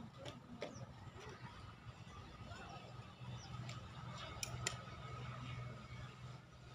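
Faint, scattered light clicks and taps from hands working plastic plant pots and soil, the sharpest two just past the middle, over a steady low hum.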